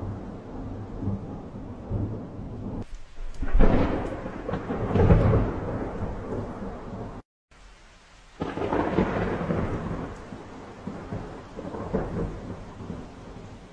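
Thunder rumbling over steady rain, with louder rolls about three and a half and five seconds in. The sound cuts out abruptly for a moment about halfway through, then the rumbling resumes.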